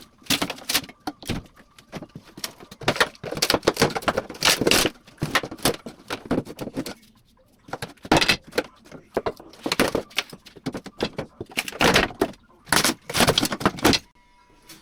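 Old wooden floorboards being pried up and handled: a run of irregular knocks and clatters of wood, with a short lull about seven seconds in.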